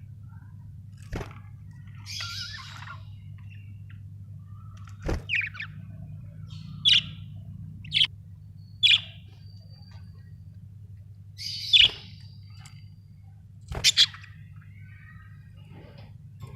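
Budgerigars giving short, separate chirps and squawks at irregular intervals, with a few sharp clicks among them and a steady low hum underneath.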